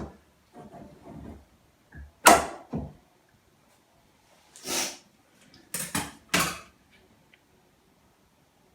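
A few scattered knocks and bumps of things being handled in a small room: a sharp knock about two seconds in, a short swish near the middle, and three more knocks about six seconds in.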